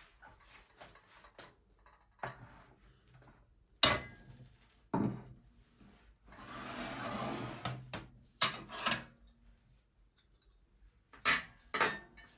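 Kitchen handling sounds: objects and dishes knocked and set down on a hard surface several times, with a rushing noise lasting about two seconds in the middle.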